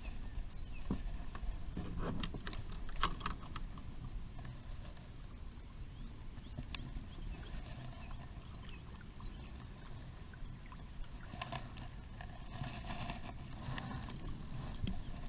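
Kayak moving on the water: water sloshing against the hull, with a few sharp clicks and knocks in the first few seconds, over a steady low rumble.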